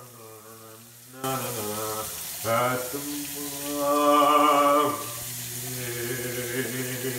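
A man singing long, wordless notes with vibrato, swelling loudest near the middle, over a steady hiss of room noise that starts about a second in.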